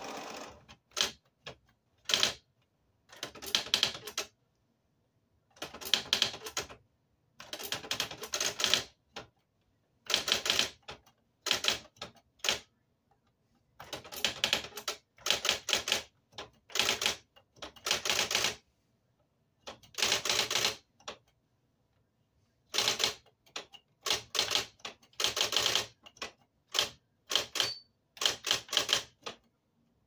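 Electric typewriter being typed on: quick runs of key strikes, each run lasting about a second, broken by short pauses, with a few single strikes in between.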